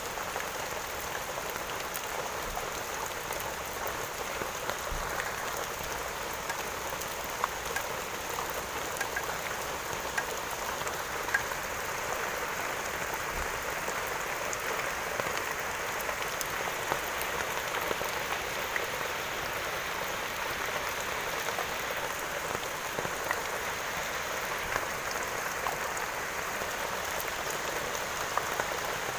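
Steady rain falling on a surface, a dense even patter with scattered louder drops.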